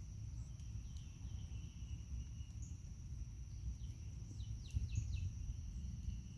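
Pond-side ambience: a steady high-pitched insect drone over a low rumble, with a bird giving four quick falling notes about four and a half seconds in.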